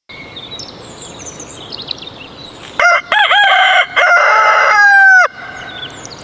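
Rooster crowing once, a loud cock-a-doodle-doo of about two and a half seconds ending in a long held note that drops away at the end. Faint chirping of small birds over an outdoor background before and after the crow.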